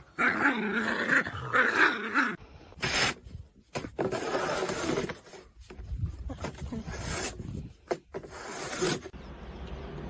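A pet animal's vocal sounds: pitched calls for about the first two seconds, then a run of short, sharp noisy bursts.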